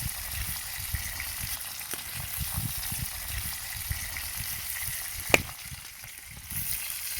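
Rainbow trout frying in a pan, a steady sizzle, with one sharp click about five seconds in.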